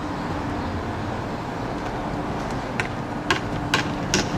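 A steady hum of outdoor traffic, then, from nearly three seconds in, a run of sharp hammer taps about two a second as roofing nails are driven into the patch.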